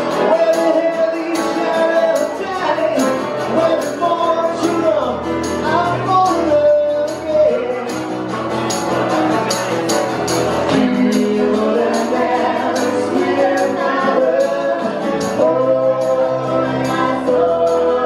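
Dance music with singing voices over a steady, jingling percussion beat.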